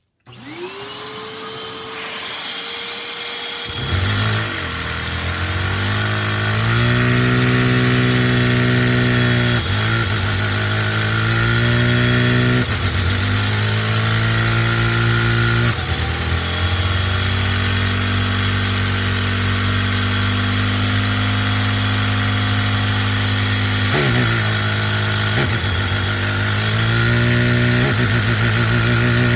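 A vacuum cleaner spins up with a rising whine and keeps up a steady rushing hiss, and about four seconds in the single-cylinder Lego vacuum engine catches and runs fast, near 6000 rpm. Its pitch dips and climbs again several times as the Lego four-speed Lenco transmission's straight-cut gears are shifted by hand.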